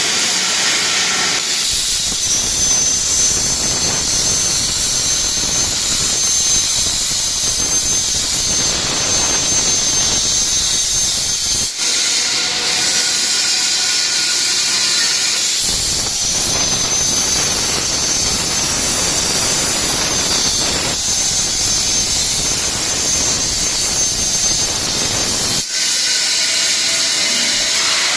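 CNC plasma torch cutting an IPE steel profile: a loud, steady hiss, with a fuller, deeper rushing noise that comes in about two seconds in, breaks off for a few seconds near the middle, and stops shortly before the end.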